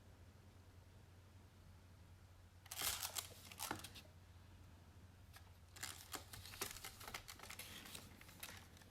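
Faint scratching of a fine-tip pen drawing short strokes on a small paper tile, in a short cluster about three seconds in and a longer one from about six seconds on, over a low steady hum.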